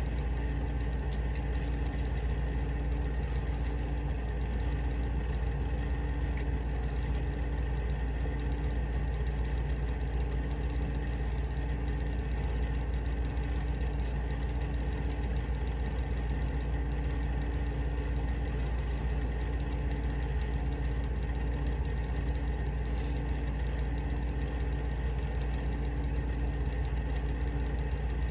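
A steady low mechanical hum with a few faint steady tones above it.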